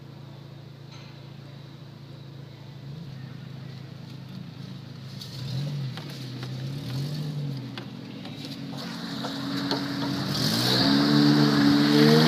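Off-road 4x4's engine running at low revs, revved up and back down twice near the middle, then pulled up to high revs and held there for the last couple of seconds, growing louder with a rushing noise under it.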